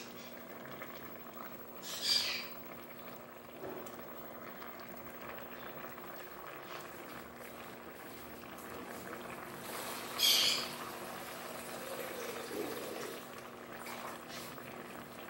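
Fish stewing in a thick tomato sauce in an aluminium pot on a gas stove, simmering with a low, steady bubbling. Two brief hissing sputters stand out, one about two seconds in and a louder one about ten seconds in.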